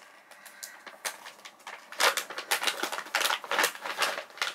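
Snack packet crinkling and rustling as it is opened by hand: faint handling at first, then a run of loud crackling rustles from about two seconds in.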